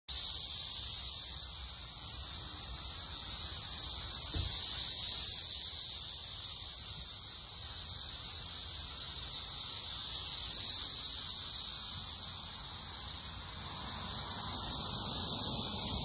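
Dense chorus of periodical cicadas: a continuous high-pitched drone that slowly swells and eases.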